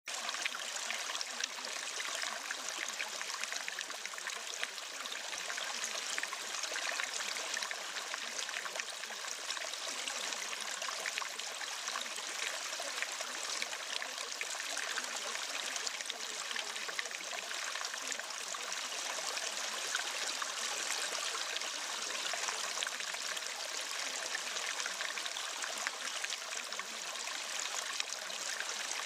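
Steady rushing of running water, like a stream, keeping an even level with no breaks.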